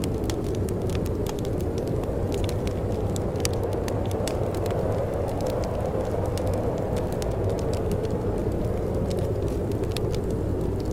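Wind blowing with a steady low rumble, while a wood fire in a fireplace crackles with scattered sharp pops.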